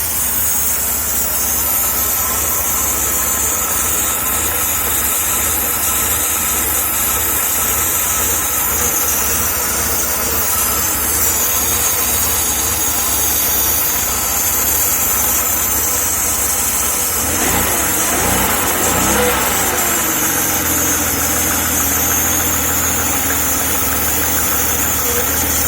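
1994 Jaguar XJ6 (XJ40) straight-six engine idling, with a steady high hiss over the engine note. The engine runs badly, which the owner puts down to a vacuum leak under the intake manifold between cylinders 3 and 5. About two-thirds of the way through, the pitch briefly wavers up and down before settling again.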